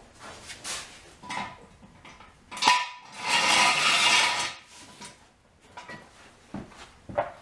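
Steel floor jack and jack stand being handled under a car on a concrete floor: scattered metal knocks, a sharp clank a little under three seconds in, then about a second and a half of grating metallic noise, and a few lighter knocks after.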